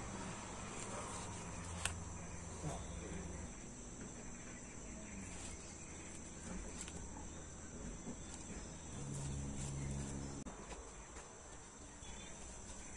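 Steady high chirring of insects, with a faint low hum that comes and goes and a single sharp click about two seconds in.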